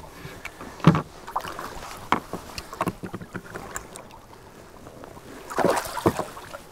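Water splashing against the side of a boat as a northern pike is held in the water and released. A few short knocks and splashes come through the middle, and a louder splash comes about five and a half seconds in as the fish swims off.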